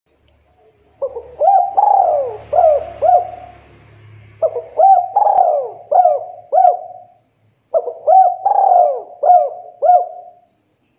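Spotted dove (tekukur) cooing: three phrases of about five or six notes each, starting about a second in, at about four and a half seconds and near eight seconds, with short pauses between.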